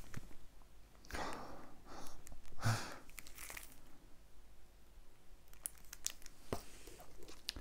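Rummaging in a cardboard box of shrink-wrapped CDs: rustling and crinkling of plastic and cardboard in short bursts, then a few light clicks near the end.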